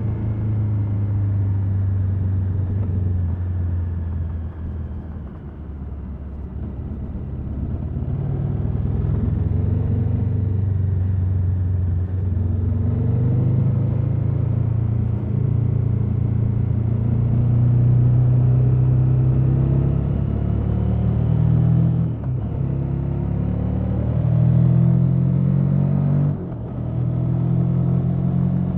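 Stock-exhaust KTM 1290 Super Adventure S V-twin engine running under load. Its pitch eases down, climbs steadily for several seconds, then breaks off briefly twice, rising again after each break.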